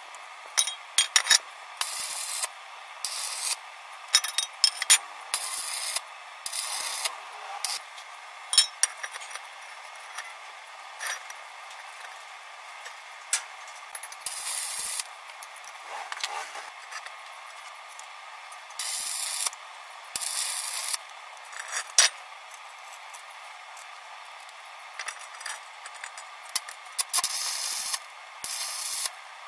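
Stick arc welder tacking steel pipe to a steel plate: repeated bursts of crackling hiss, each about a second long, with sharp metal clicks and taps in between as the pieces are handled.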